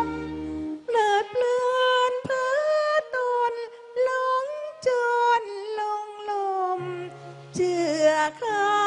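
A woman singing a slow song into a microphone, in long held notes that bend and slide in pitch, phrase by phrase, over light accompaniment; a low bass note comes in near the end.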